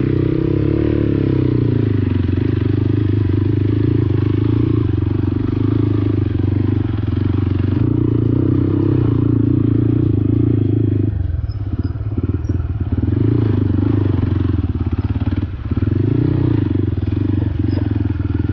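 Motorcycle engine running at low speed on a rough track, the throttle eased off about eleven seconds in and dipping again briefly a few seconds later before picking up.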